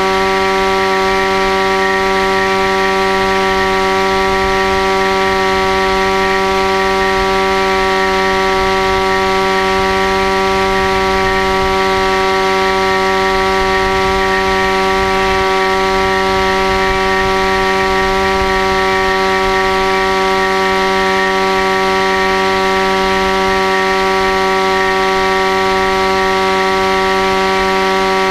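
Electric motor and propeller of a foam RC plane running at a steady throttle, heard from the onboard camera: a loud, constant whine of unchanging pitch over low wind rumble.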